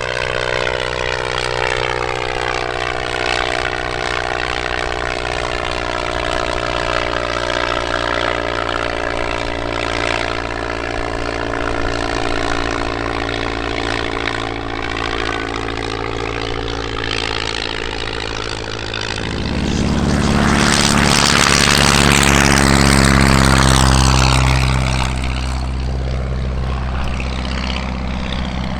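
Aircraft engine drone with slowly gliding pitch, swelling louder for a few seconds about two-thirds of the way through as it passes close, then easing back.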